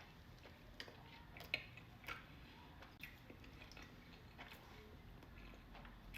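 A person chewing food close to the microphone: faint wet mouth sounds with a few small, sharp clicks, the loudest about a second and a half in.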